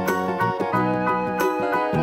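Upbeat instrumental children's background music with a steady beat and bright plucked or chimed notes.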